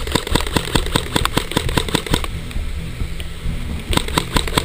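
Rapid, irregular sharp taps and clicks close to a helmet-mounted camera, over a steady low rumble. They thin out for a second or so partway through, then come thick again near the end.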